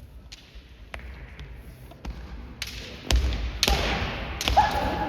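Kendo bout: a run of sharp cracks from bamboo shinai strikes and foot stamps, growing louder and coming thick between about three and four and a half seconds in. A drawn-out shout follows near the end.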